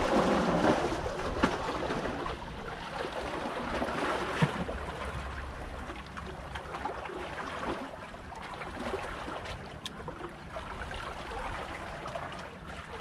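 Sea water lapping and sloshing with wind on the microphone, a low rumble at the start and again near the end, and a few light clicks.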